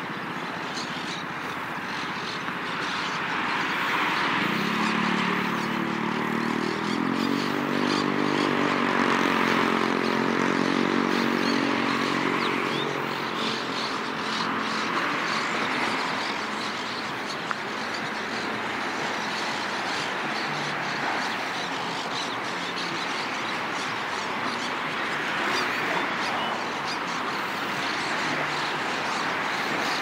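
Steady rush of city traffic, with one vehicle engine passing between about four and fourteen seconds in, its pitch rising as it speeds up.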